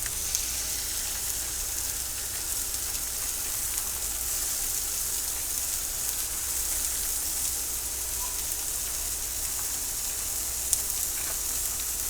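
Diced chicken thighs and onions sizzling on a hot Blackstone flat-top griddle, a steady frying hiss that gets louder right at the start, with a couple of sharp clicks.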